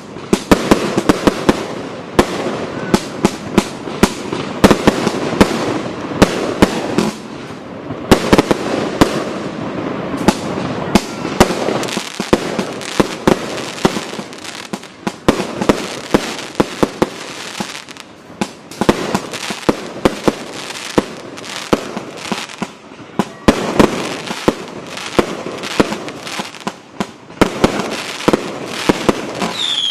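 Fireworks cake (multishot battery) firing a dense, irregular barrage of sharp bangs, several a second, over a continuous hissing crackle, with no pause.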